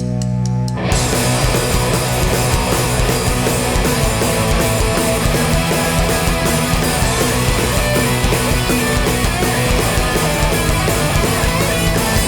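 Hardcore punk band playing live: a held guitar note rings with a few sharp clicks over it, then about a second in the full band of distorted guitars, bass and drums comes in and plays the instrumental opening of the song.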